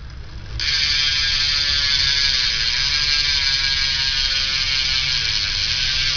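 Shadow Conspiracy Raptor BMX rear cassette hub freewheeling: the pawls ratchet in a fast, loud, even buzz as the back wheel spins. The buzz starts abruptly under a second in.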